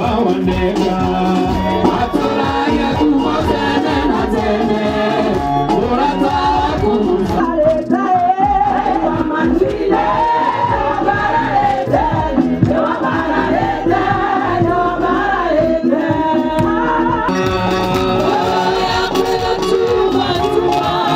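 A group of people singing a song together, clapping along.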